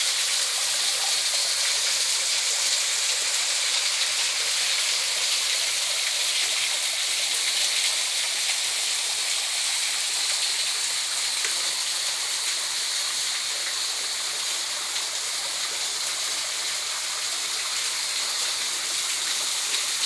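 A small forest creek and its little waterfalls rushing, a steady, even hiss of flowing water with no let-up.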